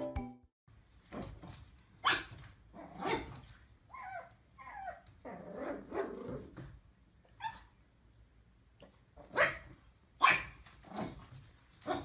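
Small puppy barking at its own reflection in a mirror: a string of short, sharp barks with pauses between, and a couple of higher, whiny yelps about four seconds in.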